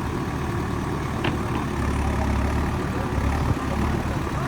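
JCB backhoe loader's diesel engine running steadily, with a light click about a second in.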